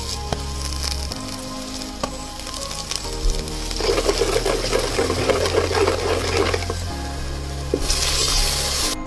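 Hot oil sizzling with chili powder and spices frying in a pan, with a denser crackle while a wooden spoon stirs it from about four to seven seconds in, over soft background music.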